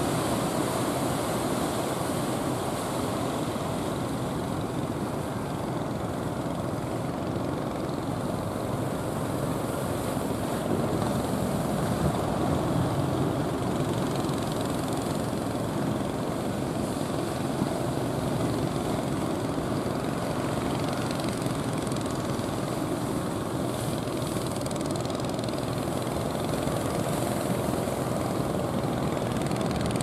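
Diesel engines of large wooden fishing boats running steadily under way, mixed with the wash of rough sea at their bows.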